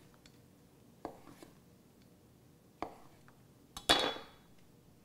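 Kitchen knife slicing hard-boiled eggs and knocking on a wooden cutting board: separate sharp taps about a second in and near three seconds. Near the end comes a louder metallic clink with a brief ring.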